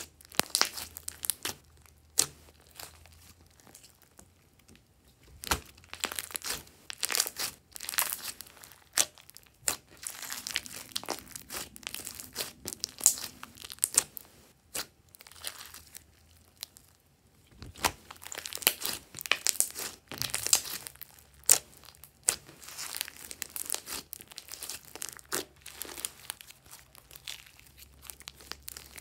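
Hands squeezing, folding and stretching a large lump of glossy slime: sticky crackling and tearing sounds as it is pressed and pulled apart, coming in irregular bursts with short pauses between handlings.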